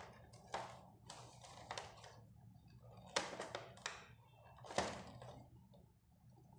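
Irregular taps and knocks of toy-car packaging being handled and opened, cardboard and plastic blister bumped and pulled, with the sharpest knocks about three and five seconds in.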